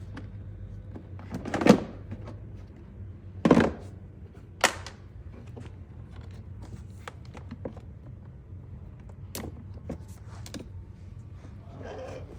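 Handling noises from parts being worked on: three louder knocks or thunks in the first five seconds, then scattered light clicks and taps over a steady low hum.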